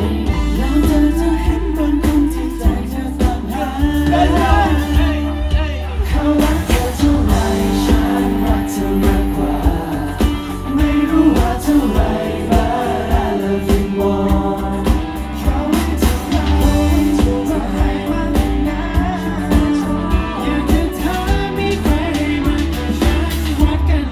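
Live pop song played loud through a stage PA: a male vocal group singing over a band with electric guitar, drums and heavy bass.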